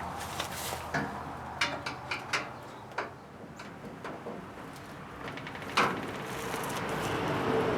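Scattered clicks, taps and knocks of stainless steel cabinet panels and screws being handled during assembly, with one sharper clank near six seconds in.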